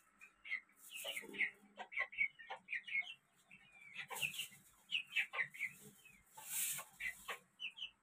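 A small group of chickens making many short, high clucks and chirps in quick succession, with three brief hissing bursts about a second in, near the middle and near the end.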